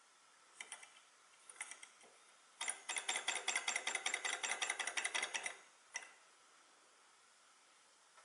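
Small high-temperature Stirling engine model with an alcohol burner, its flywheel started by hand: a few light clicks, then the engine runs with a fast, even clatter of about ten clicks a second for about three seconds before it stops. It cannot keep itself running; the owner puts its unsteady running down to a poorly held power piston.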